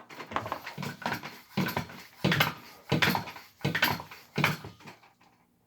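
Bicycle hand pump being worked in quick, even strokes, one about every two-thirds of a second, each stroke a rush of air into a tubeless tyre freshly plugged at the sidewall; the pumping stops about five seconds in.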